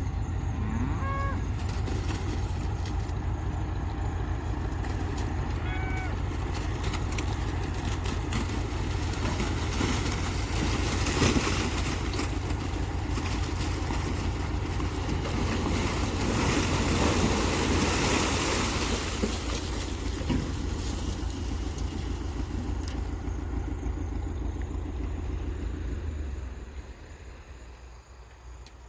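A motor vehicle's engine running steadily with a low, even throb, then falling away sharply near the end. Two short pitched calls sound over it early on.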